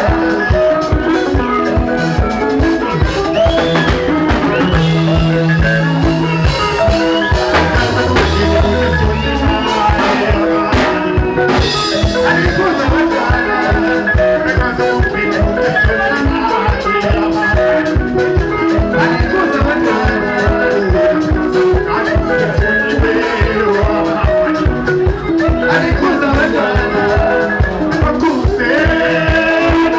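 Zimbabwean rumba band playing live: interlocking electric lead and rhythm guitars over electric bass and a fast, steady drum-kit beat, with a man singing into a microphone.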